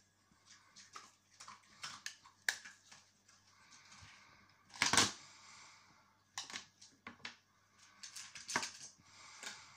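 Small clicks and taps of makeup compacts and brushes being handled and put down on a table, with one louder knock about five seconds in.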